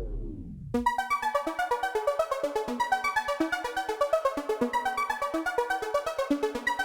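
Background electronic music. A downward pitch sweep dies away in the first moment, then quick, evenly pulsed synthesizer notes play in a running pattern.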